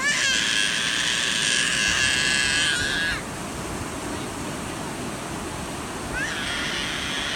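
Two long, high-pitched yells, each held steadily for about three seconds with a rising start and a falling cutoff. The first fills the opening three seconds and the second begins a little past six seconds in.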